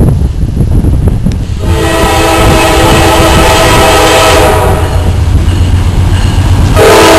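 Norfolk Southern diesel locomotive's air horn blowing over a low rumble as the train approaches. The horn starts about two seconds in, eases off past the middle, and comes back louder near the end as the locomotive draws close.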